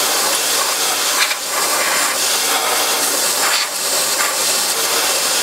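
Compressed-air blow gun on a long nozzle blasting loose rust and flaking coating off a vehicle's steel chassis frame, a loud steady hiss with a couple of brief dips. This is the first cleaning pass, before rust remover goes on.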